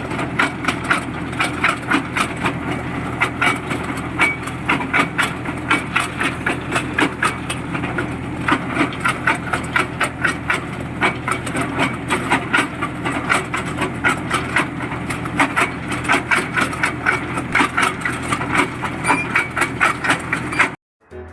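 Borewell drilling rig running: a steady engine drone with rapid, irregular knocking, about four knocks a second. It cuts off suddenly near the end.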